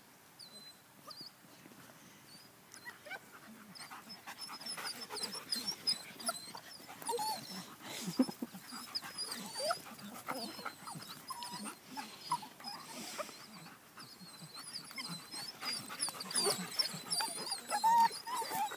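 German Shepherd puppies playing: scattered little squeaks, whimpers and growls over scuffling, sparse at first and growing busier from about three seconds in.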